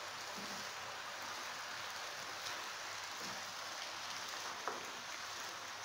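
Spinach leaves sizzling steadily in a frying pan on turned-down heat as a wooden spoon stirs them, with a sharp click of the spoon against the pan a little before the end.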